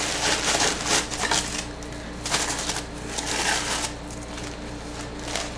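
Paper rustling and crinkling in bursts as hands press and smooth tissue paper and honeycomb kraft paper wrap down inside a cardboard shipping box.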